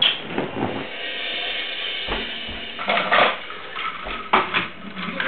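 A toy train being banged, a string of sharp bangs and clatter with a loud hit at the start, a cluster about three seconds in and another hit about a second later.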